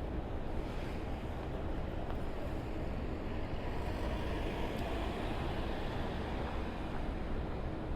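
Street traffic going by: a steady rush of passing vehicles that swells a little in the middle.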